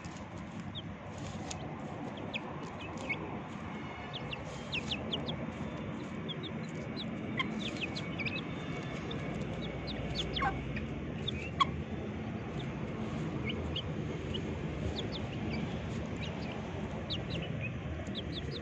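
Young chickens peeping in short, high, falling chirps scattered throughout, with a couple of lower calls near the middle, over a steady low background noise.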